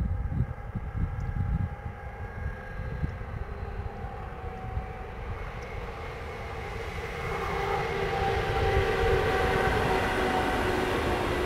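Container freight wagons rolling past on the rails, with several steady, drawn-out squealing tones from the wheels in the tight curve that grow louder about halfway through. Wind buffets the microphone with low gusty rumbles near the start.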